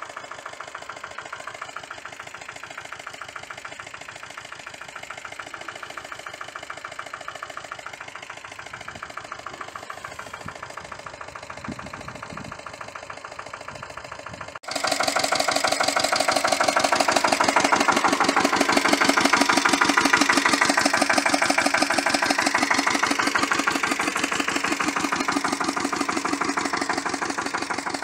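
Lombardini LDA96 single-cylinder air-cooled diesel of a Pasquali two-wheel tractor running steadily with a rapid, even firing beat while working a rotary tiller. It is distant at first, then much louder and closer from about halfway through.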